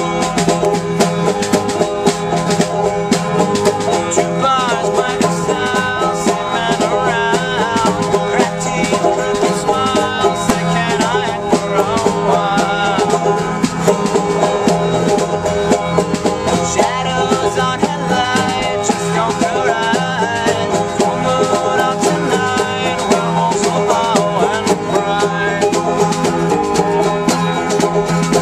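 Acoustic string band playing an upbeat bluegrass-style song: a strummed acoustic guitar and a banjo over a drum beaten with the hands in a steady, even rhythm, with a voice singing in places.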